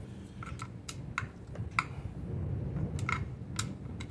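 Steel screwdriver clicking and clinking against screws and the metal engine casing of a 125cc pit bike as its screws are checked and tightened: about eight irregular sharp clicks, several with a brief metallic ring, over a low background rumble.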